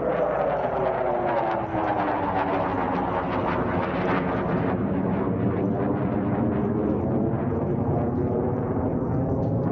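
A passing vehicle, fairly loud and steady, with several pitches falling slowly together over about eight seconds before levelling off.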